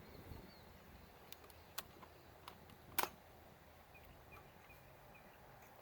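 Quiet outdoor ambience with a few light, sharp clicks, the sharpest about three seconds in, and faint high chirps near the end.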